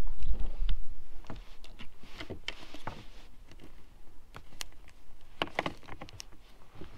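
Scattered light clicks, taps and rustles of hand work as a Boat Buckle retractable rod-strap unit is fitted into its cut-out under a bass boat's gunwale. A low rumble is loudest in the first second.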